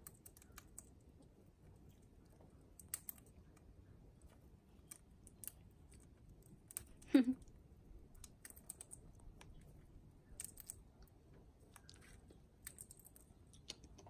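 Green rosella cracking sunflower seeds in its beak: faint, irregular small clicks and crunches of husks splitting. One brief sound falling in pitch about seven seconds in.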